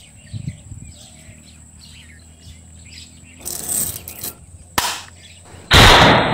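Birds chirping faintly, then a sharp snap about five seconds in as a bamboo finger slingshot's rubber bands are released. Near the end comes a loud crash as a clay pot is hit and shatters.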